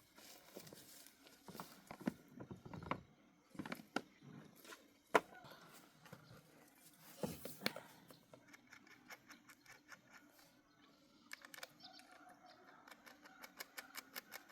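Faint, scattered clicks and knocks, with one sharper knock about five seconds in and a quick run of light ticks near the end.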